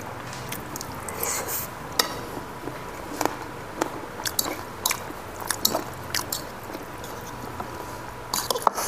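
Close-miked eating: chewing and mouth smacks, with scattered sharp clicks of a metal fork against ceramic bowls.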